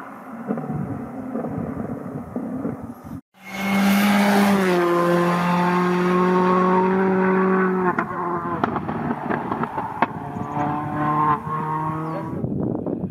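Skoda Fabia Rally2 evo's turbocharged 1.6-litre four-cylinder engine driven hard as the rally car passes, the sound cutting out briefly about three seconds in. It is held at high, steady revs for several seconds, then lifts and steps through gear changes with sharp cracks.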